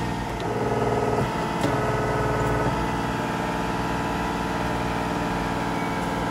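Steady machine hum of running shop machinery, with a few faint ticks.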